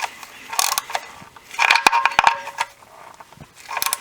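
Ratchet wrench with a 19 mm socket clicking in three short bursts as the oil pan drain plug is snugged up.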